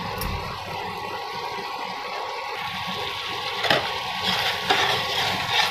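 Thick curry gravy bubbling and sizzling steadily in a pan on the stove, with a single knock a little past halfway.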